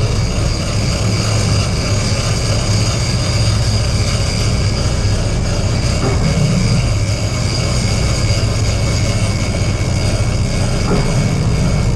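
A fishing boat's engine running steadily: a loud, even low drone with faint steady tones above it.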